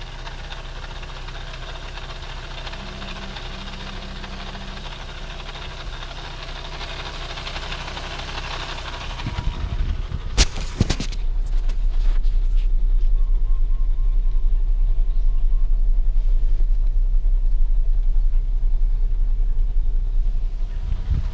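2015 Audi A3 1.8T rolling uphill in Drive off the throttle, with a grinding noise from the front of the car. A steady hum with a higher hiss at first, then a few sharp knocks about ten seconds in, after which a much louder low rumble sets in.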